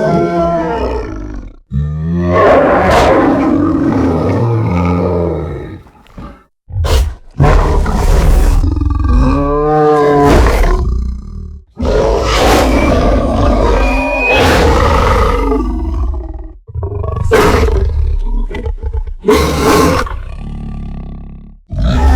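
Monster-roar sound effect for a wolf-like beast: a string of about six loud, growling roars, each a few seconds long, with short breaks between them. One call about ten seconds in rises and falls in pitch like a howl.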